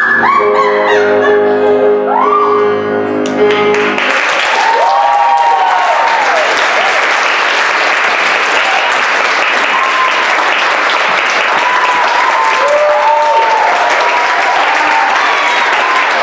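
A final sustained piano chord sounds for about four seconds and stops, then an audience breaks into loud, steady applause with whooping cheers.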